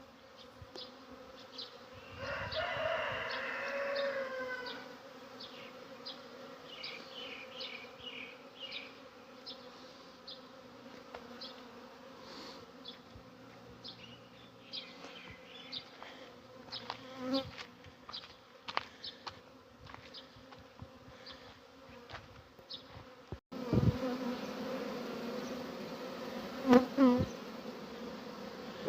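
Honeybees buzzing at a beehive: a steady hum, with short high chirps scattered through it. About two seconds in, a louder pitched call rises and falls for a couple of seconds. Near the end the buzzing suddenly becomes louder and closer.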